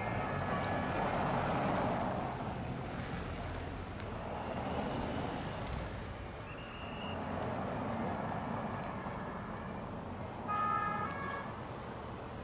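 Cars and motorcycles of a police-escorted motorcade driving past in city traffic, their engine and tyre noise swelling as each vehicle passes. About ten seconds in comes a short, loud warning blast of several steady tones.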